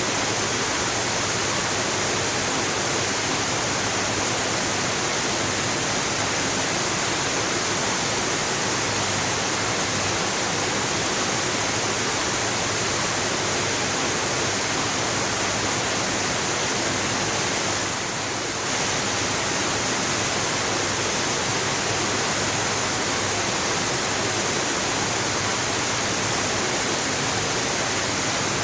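Waterfall: a steady, full rush of falling water, briefly a little quieter about two-thirds of the way through.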